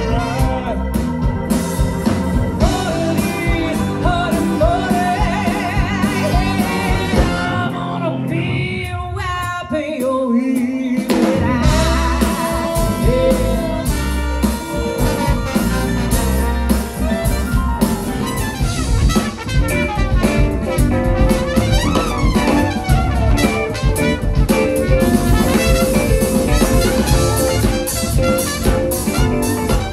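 Live swing big band playing: a male singer over horns, guitar and drum kit. About eight seconds in the band briefly drops out, then comes back in full, with trumpets playing later on.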